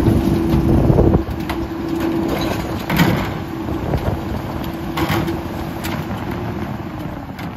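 Peterbilt garbage truck's diesel engine running with a steady hum, louder for about the first second. Knocks and clatter from plastic recycling bins being emptied into the split Heil rear loader's hopper and set down, the sharpest about three seconds in and another about five seconds in.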